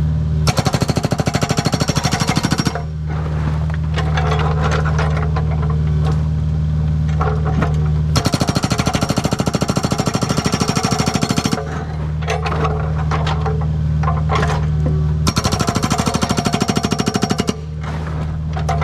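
Agrotk 680 hydraulic breaker hammer on a Kubota U55 mini excavator pounding rock in three runs of rapid, evenly spaced blows, each lasting two to three seconds. The runs come shortly after the start, in the middle and near the end. Between them the excavator's diesel engine runs steadily.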